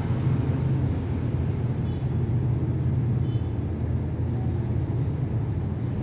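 Panasonic F-EY1511 ceiling fan running at speed, a steady low hum.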